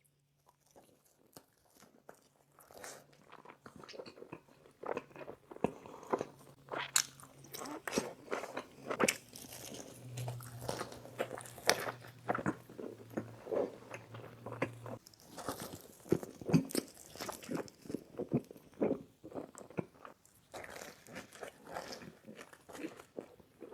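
Close-up eating: biting and chewing Papa John's pizza, with irregular crunchy, crackly bites and chews.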